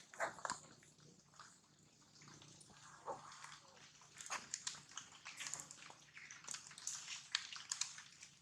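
A baby macaque making faint, irregular short sounds: many quick clicks and small noises, coming thicker in the second half.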